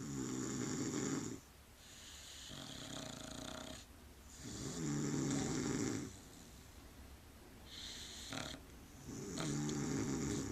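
A man and a dog snoring together in bed. Three loud, fluttering snores come about four and a half seconds apart, with softer, hissing breaths between them.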